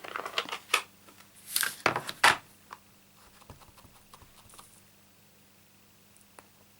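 Stamping supplies being handled on a craft table: a few light taps and clicks, the two loudest knocks around two seconds in, then only faint ticks.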